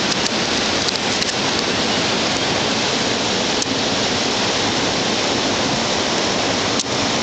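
River rapids rushing over boulders: a steady, loud hiss of moving water.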